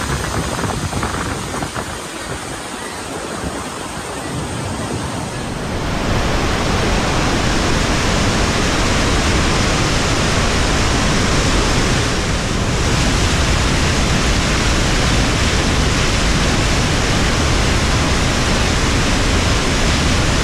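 Falling water of the Bridal Veil Falls crashing onto the rocks and whitewater at close range: a dense, steady rushing noise that jumps louder about six seconds in and holds.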